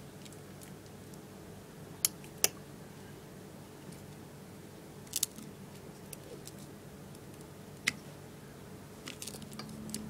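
Scattered sharp clicks and taps of a broken iPod and its loose glass front panel being handled on a glass tabletop: two about two seconds in, more near the middle, and a cluster of small clicks near the end, over a steady low hum.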